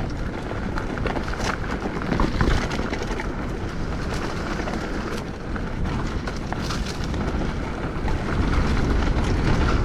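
Wind buffeting the microphone over the rolling noise of a hardtail mountain bike on dirt singletrack, with frequent short clicks and rattles from the bike over rough ground.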